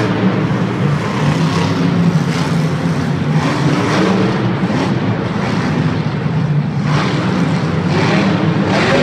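El Toro Loco monster truck's supercharged V8 engine running hard with a steady, loud low engine note, echoing through an enclosed stadium.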